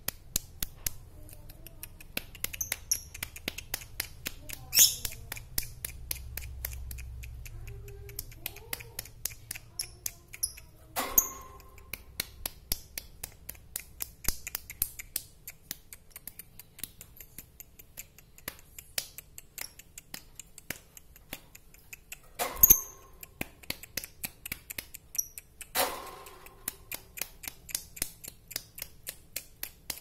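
Caged lovebird giving a few short, high chirps over a quick, steady run of small clicks, with a few louder sharp knocks, the loudest about two-thirds of the way in.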